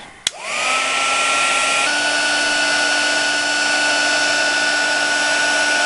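Heat gun switched on with a click, its fan motor spinning up to a steady whine over a rush of hot air blowing to shrink heat-shrink tubing; the pitch steps up slightly about two seconds in.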